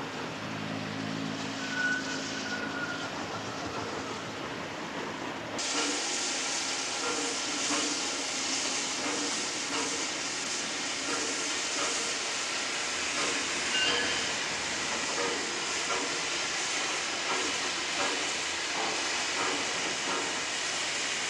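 Steam locomotive hissing steadily with escaping steam, with scattered knocks and clanks. For the first five and a half seconds there is a quieter low steady hum, and then the hiss comes in suddenly and loud.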